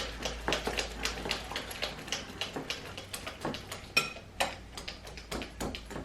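A utensil clicking against a mixing bowl in quick, uneven strokes, beating eggs with melted butter and vanilla.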